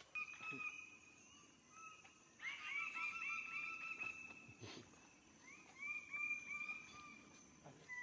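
Male lesser birds of paradise calling at their display tree: a drawn-out note at the start, then two rapid series of short rising notes, about five a second, around two and a half seconds in and again near six seconds.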